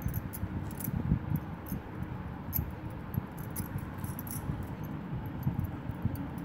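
Hands working wet papier-mâché around a small vase's neck: irregular soft handling thumps and rubbing, with scattered light clinks of bangles on the wrist.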